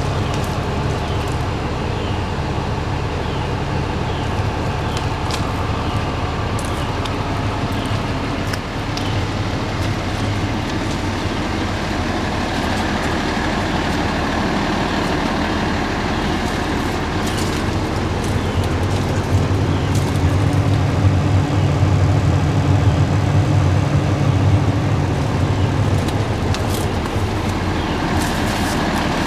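Sterling Acterra line truck's diesel engine idling steadily, with a low hum that grows louder for several seconds past the middle.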